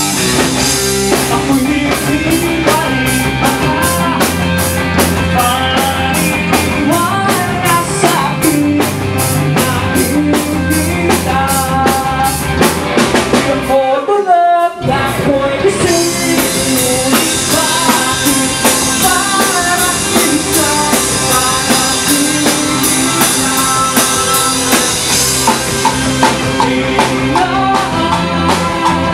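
A live rock band playing loud, with electric guitars, bass and a drum kit behind a singer at the microphone. The drums keep fast, even strokes for the first half. About halfway through the band drops out for about a second under a single sliding note, then comes back in.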